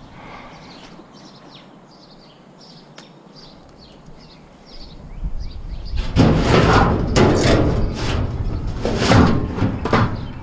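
Small birds chirping over a quiet background, then from about six seconds in a loud run of knocks, clatter and scraping from junk being handled and moved.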